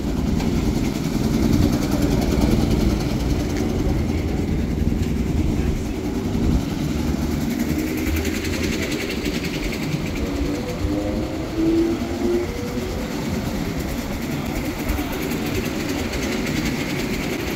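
Go-kart engines running at idle, a steady low rumble, with one engine's pitch rising for a couple of seconds partway through.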